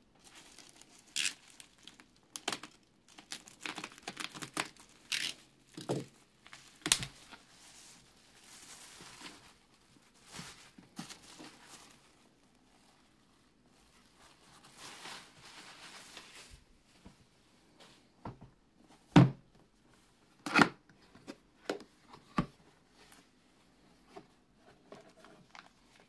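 Packaging being unwrapped by hand: tape tearing off bubble wrap, and the plastic crinkling and crackling in a long run of sharp crackles. About two-thirds of the way through come a few loud knocks as the cardboard lens box is handled and opened.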